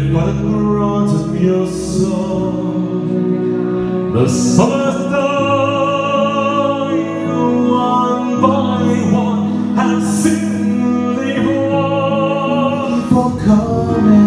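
A man singing live into a handheld microphone over instrumental backing, holding long notes with vibrato.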